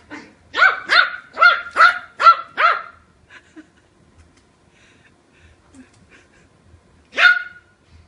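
Yorkshire Terrier barking: six quick, high-pitched barks in the first three seconds, then one more bark near the end.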